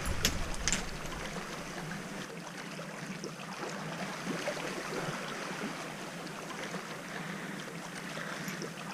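Sea water washing and trickling among shoreline rocks, a steady even rush.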